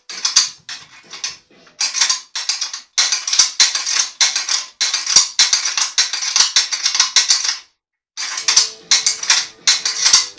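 A ratcheting mechanism clicking in fast, repeated strokes, with a brief pause about three-quarters of the way through.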